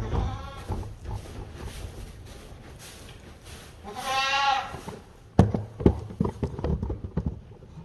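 Goats bleating twice: a short wavering call at the start and a longer, louder one about four seconds in. A run of sharp knocks and thumps follows after about five seconds.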